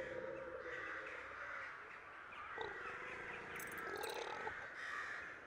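Crows cawing, with two short calls standing out about halfway through and near the end, over a faint steady ambience.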